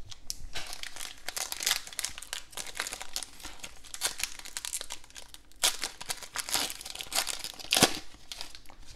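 Plastic foil wrapper of a Donruss football card pack being torn open and crinkled as the cards are pulled out: a dense, irregular crackling, with a couple of louder crinkles past the middle.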